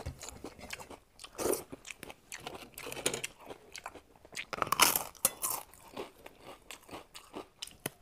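A person chewing crunchy food close to a clip-on microphone, with irregular crunches and bites.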